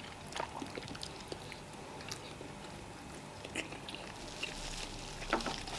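Quiet chewing and small wet mouth clicks of people eating fufu and vegetable soup, with a sharper click about five seconds in.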